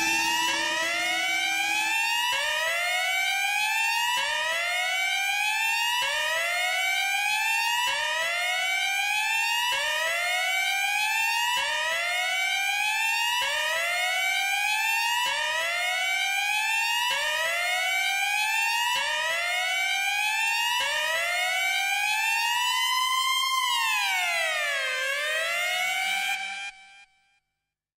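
An electronic synth tone sweeping upward over and over, a new rise starting about every two seconds and overlapping the last, so it seems to climb without end. Near the end it swoops down and back up, then cuts off suddenly.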